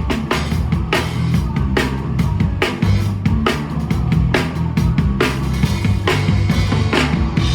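Live rock band playing, the drum kit hitting a steady beat about twice a second over sustained low bass notes.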